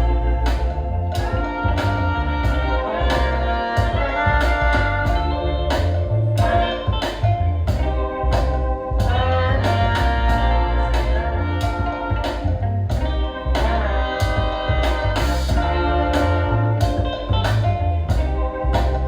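Music with a steady drum beat, heavy bass and sustained melodic notes.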